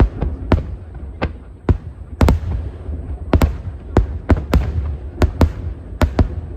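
Fireworks display: aerial shells bursting in quick irregular succession, about two sharp bangs a second, over a steady low rumble.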